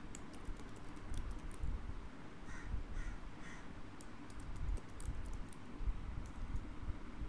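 Computer keyboard typing in scattered keystrokes and clicks, with three short animal calls in the background about two and a half to three and a half seconds in.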